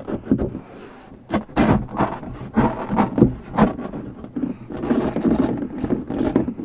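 Carpet-wrapped luan trim panel being pried and pulled off a subwoofer wall: a series of scrapes, knocks and rubbing, then denser rasping scraping in the last two seconds. The industrial-strength Velcro holding it makes it hard to free.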